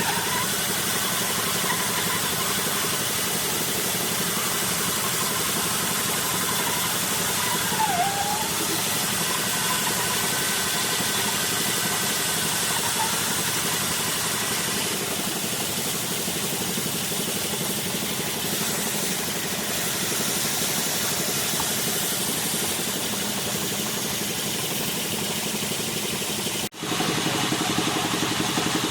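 Wood lathe running steadily, with a continuous hiss across the range from turning work on the spinning wood. Near the end the sound drops out for an instant and resumes with a slightly different, more even texture.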